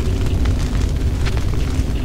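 Generated ambient drone noise: a steady deep rumble with scattered irregular crackles.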